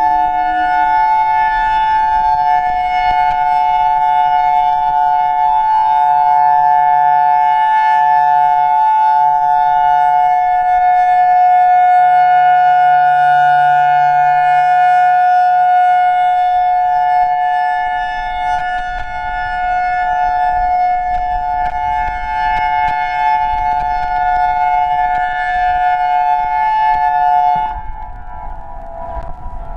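Federal Signal EOWS 612 electronic outdoor warning siren sounding its steady Alert signal as two tones at once, a held two-note chord that does not rise or fall. The tones stop shortly before the end.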